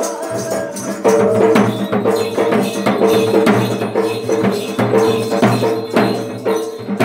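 Live Danda Nacha folk-dance music: quick, repeated drum and percussion strikes over a steady held tone.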